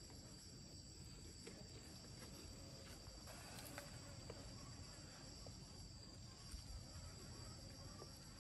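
Faint, steady high-pitched trilling of crickets, with a few soft ticks here and there.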